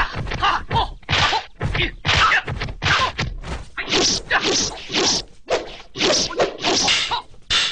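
A rapid run of punch and kick impact sound effects from a kung fu film fight, about three sharp hits a second, with no let-up.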